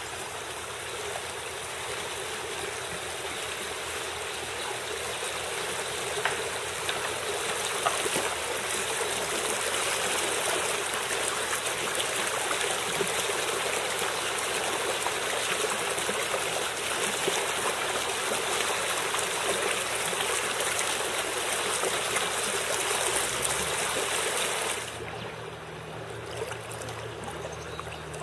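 Shallow, fast river current rushing steadily over riffles. The rush gets quieter about 25 seconds in.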